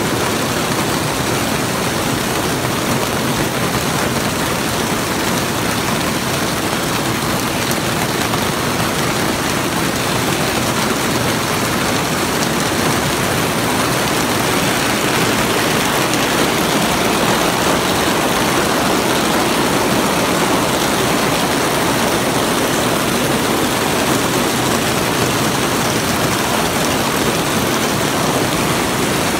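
Hail as big as quail eggs, mixed with heavy rain, pelting a greenhouse roof, heard from inside the greenhouse: a loud, dense, unbroken clatter of countless stones.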